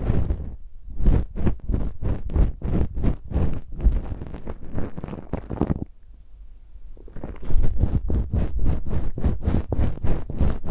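Ear-cleaning ASMR: quick scratching strokes of an ear pick against a microphone's ear, several a second. They lull briefly about six seconds in, then come back as a denser run of scratching.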